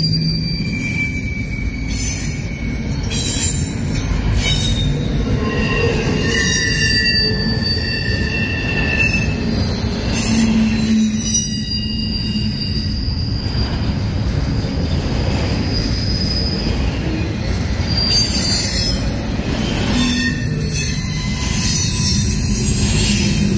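Double-stack intermodal freight cars rolling past on steel wheels: a steady heavy rumble with high-pitched wheel squeal, several squealing tones coming and going every few seconds.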